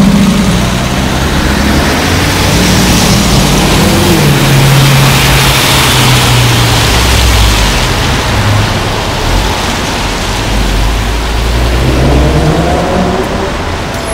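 Straight-piped BMW M3 E92's V8 exhaust, loud and deep, pulling away and revving. The engine note climbs about four seconds in, holds, eases off, then climbs again near the end.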